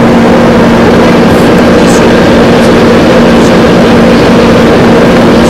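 A steady, loud, engine-like drone: a constant low hum over dense noise.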